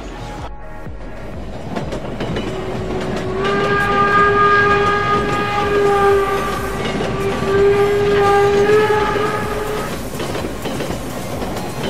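Train sound effect: a train running past with a rolling rumble, and a horn sounding one long steady note from about three seconds in until about ten seconds in.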